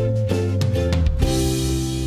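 Background music with drums and guitar.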